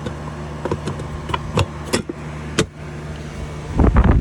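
Outdoor AC condensing unit running with a steady hum after a condenser fan motor replacement, with several sharp metal clicks and knocks as a part is fitted back on. Near the end, a loud rush of air from the condenser fan's discharge buffets the microphone.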